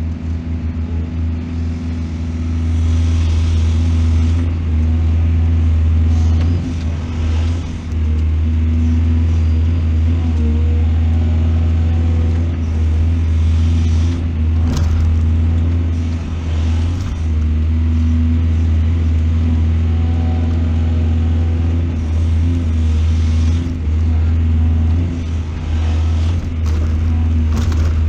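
Large excavator's diesel engine running steadily with a deep, even hum, with a few brief noisier moments over it as the machine works.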